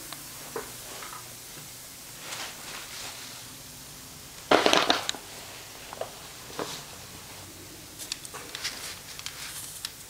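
Scattered rustles and light knocks from movement at the cat's perch by the window, the loudest a short rustling burst about halfway through and a run of small clicks near the end.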